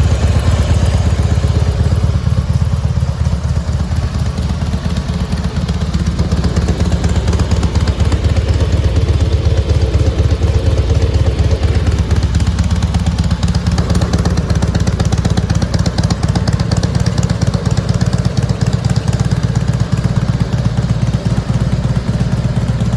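2004 Harley-Davidson Softail Night Train's Twin Cam 88B V-twin engine running steadily through aftermarket Miller mufflers.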